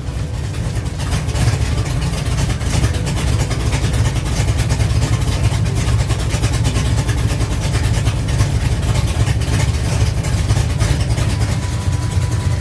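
V8 engine of a hot-rod car idling steadily, having just settled from a rev.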